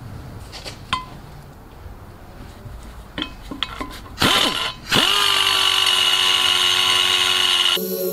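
A few light clicks, then a die grinder with a carbide burr starts with a short burst about four seconds in, spins up again a second later and runs with a steady high whine as it starts cutting the cast-iron intake port of a Vortec cylinder head. Background music comes in just before the end.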